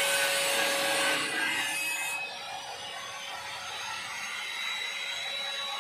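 Electric turbine paint sprayer running steadily, a motor hum under the hiss of air and paint spray. About two seconds in the hiss becomes softer and the sound a little quieter.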